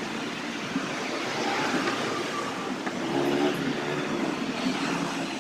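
A vehicle running: a steady, noisy sound with a faint hum.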